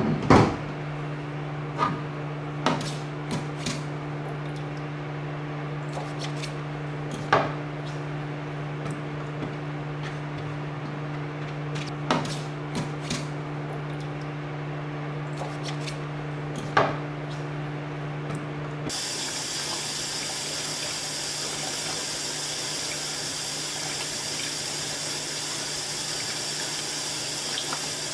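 Darkroom trays and sink. First a steady low hum with scattered clicks and small splashes as a print is handled with tongs in the chemical trays. About two-thirds of the way through it changes suddenly to water running steadily from a tap into the sink for the rinse.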